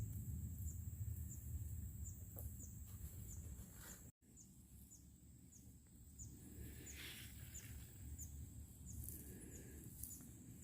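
Quiet field ambience: a steady high insect drone with a short chirp repeating about one and a half times a second, over a low wind rumble on the microphone that eases after a brief dropout about four seconds in.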